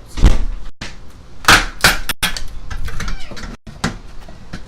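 Sharp knocks and cracks as an old window frame is hammered and pried loose. There are several separate hits, the loudest just after the start and two more close together about a second and a half in.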